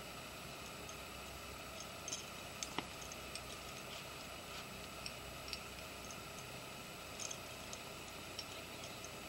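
Faint, irregular light metallic clicks and clinks of climbing hardware (carabiners and quickdraws) over a steady low hiss, about ten separate ticks scattered through the stretch, the sharpest a few seconds in.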